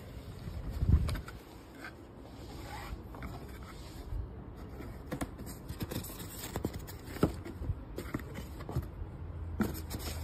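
Handling noise while unpacking a food steamer from its box: scraping and rustling of cardboard and plastic-wrapped plastic parts, with many light clicks and knocks and one thump about a second in.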